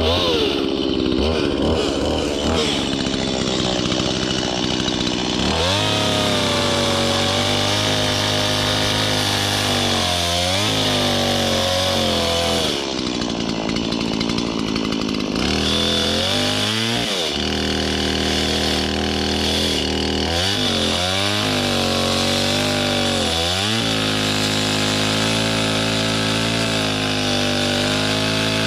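Gas chainsaw running at high revs and cutting into a tree trunk, gently cutting away wood above a second saw pinched in the cut. The engine pitch drops and climbs back several times as the chain bites and eases off.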